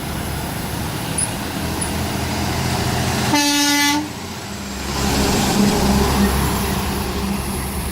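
Road traffic with a single truck horn blast of under a second, about three seconds in, one steady pitch that cuts off abruptly. Afterwards a heavy vehicle's engine runs loudly as it passes.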